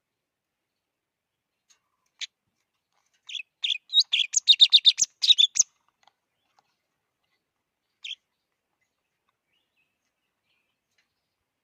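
Java sparrow chirping: a single short chirp, then a quick run of high chirping notes for about two seconds, then one more chirp near the two-thirds mark.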